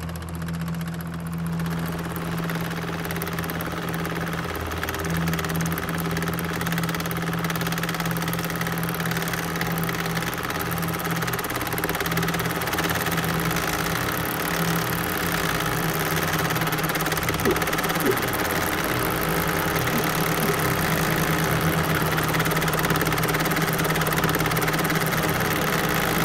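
A loud, engine-like droning hum with a rapid pulse in its low tones, growing slightly louder and cutting off at the end.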